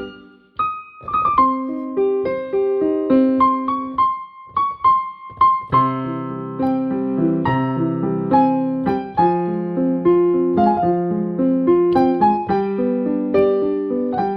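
Piano music: a slow single-note melody, joined about six seconds in by fuller chords with low bass notes.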